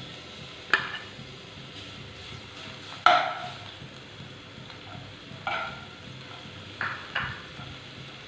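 Grated carrot sautéing in hot ghee in a non-stick pan with a faint steady sizzle, while a steel spoon stirs it, knocking and scraping against the pan about five times, loudest about three seconds in.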